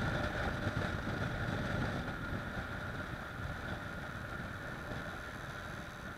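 Kawasaki ER-6f's 650 cc parallel-twin engine running on the road, mixed with wind and road rush, growing gradually quieter.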